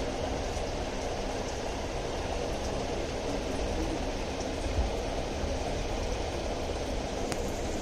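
Steady running noise of an aquarium pump and moving water, with a low steady hum underneath.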